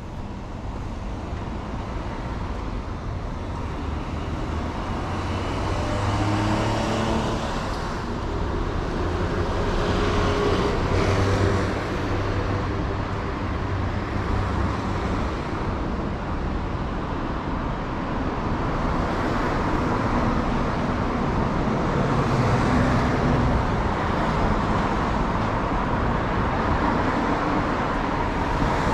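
Urban road traffic: cars running along the street close by, swelling as vehicles pass a few times.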